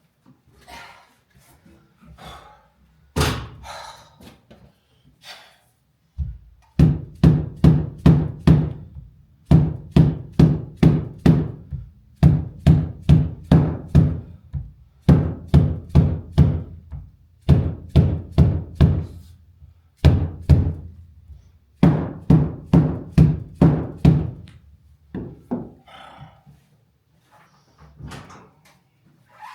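Heavy thumping knocks struck in quick runs of five or six, about three a second, each with a low ring, with a single loud knock before the runs and lighter knocks at the start and end.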